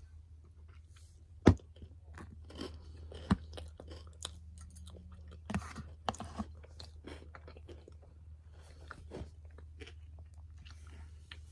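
Close-up chewing and crunching of a mouthful of salad, with two sharp knocks, the loudest sounds, about a second and a half and three seconds in. A faint steady low hum runs underneath.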